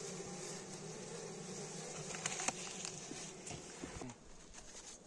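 Honeybees in an active winter cluster in an opened hive, humming steadily. A few sharp clicks come a little over two seconds in and again near four seconds, and the hum drops away about four seconds in.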